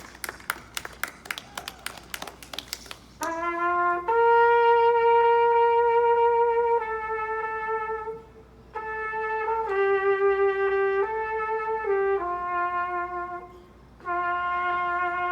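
A few seconds of scattered hand clapping, then a solo trumpet playing a slow melody of long held notes, with two short breaks between phrases.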